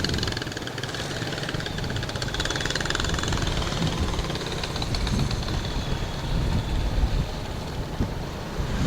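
A vehicle engine running steadily amid street noise, with a rumble that rises and falls.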